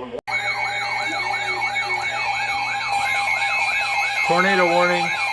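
Electronic emergency alert siren sweeping rapidly up and down, about three times a second, over steady alert tones, starting abruptly: an alert sounding for a tornado warning.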